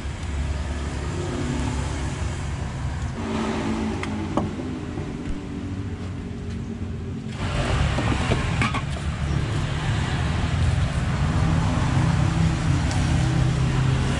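Road traffic running, a steady low rumble of motor vehicles, with a few light clinks of dishes and cutlery.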